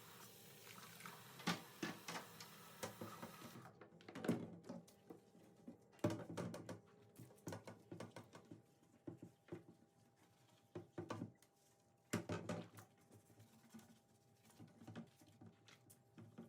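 Food sizzling in a pan with a few clicks, cut off suddenly a few seconds in. Scattered light knocks and clicks of kitchen items being handled follow, louder about four, six and twelve seconds in.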